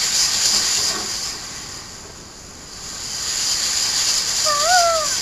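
Ocean-wave sound effect: a rushing hiss that swells, ebbs about two seconds in, and swells again. Near the end a short pitched tone rises and then falls.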